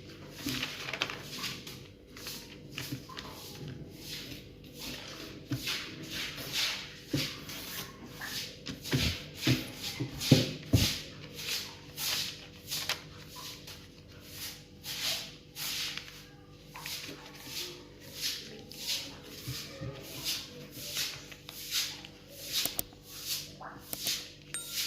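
A sheet of paper being folded and creased by hand: a run of short rubbing strokes, about two a second, with a few louder knocks near the middle. A faint steady hum runs underneath.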